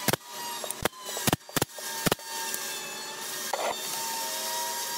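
Brad nailer firing about five sharp shots in quick succession, driving brads into a hardwood drawer frame, followed by a short scrape of wood on wood as the pieces are handled.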